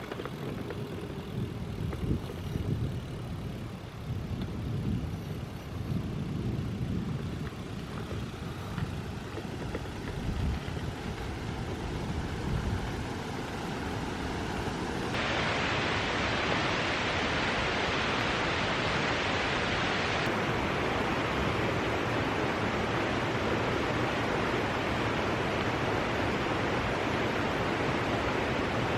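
Low, gusty buffeting of wind on the microphone; about halfway through, an abrupt cut to the steady rushing roar of a large waterfall, Hällingsåfallet.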